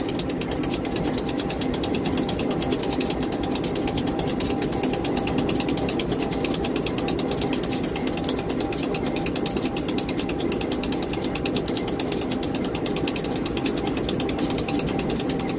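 Diesel locomotive engine idling at close range, a steady mechanical running sound with a rapid, even ticking beat.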